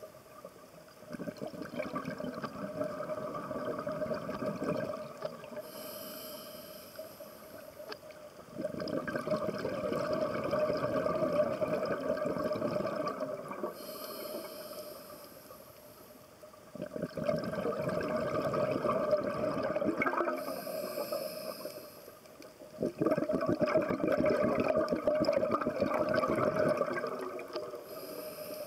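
Scuba diver breathing through a regulator underwater: a short hissing inhale, then a long bubbling exhale. The cycle repeats about four times.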